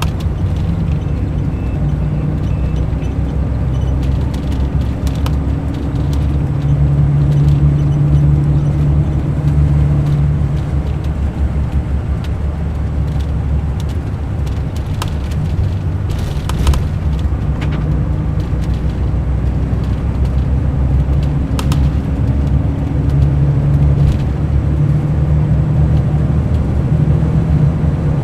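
Mercedes-Benz O500 RSD coach's six-cylinder diesel engine running, with a loud, steady low drone. The engine note climbs for several seconds, eases back, then climbs again near the end as the engine speeds up and slows.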